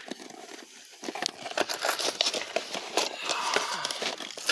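Crinkling and rustling with many small, quick clicks and knocks, from a padlock and the things around it being handled.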